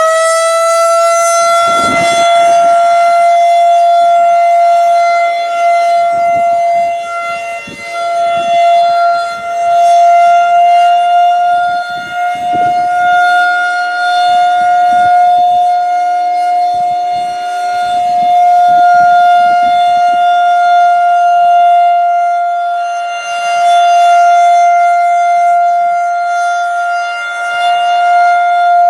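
Federal Signal 2001-130 rotating electromechanical outdoor warning siren sounding the steady Alert signal. It finishes winding up to full pitch about a second in, then holds one steady tone that grows louder and softer every few seconds as the rotating horn turns toward and away.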